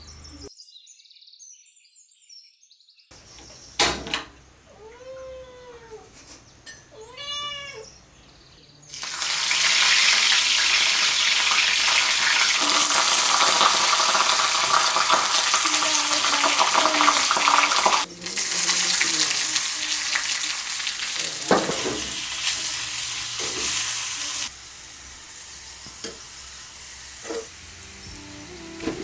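A cat meows twice, then food sizzles loudly as it fries in hot oil. The sizzle breaks off briefly about halfway, comes back, and turns quieter near the end.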